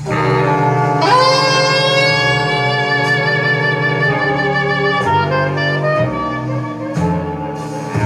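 Recorded saxophone jazz played back through 22A horn loudspeakers. About a second in, a long note with vibrato is held for about three seconds, then shorter notes follow.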